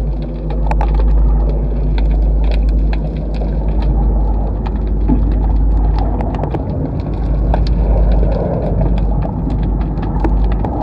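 Underwater camera audio: a heavy, muffled low rumble of water against the submerged microphone, with many sharp, scattered clicks and crackles throughout.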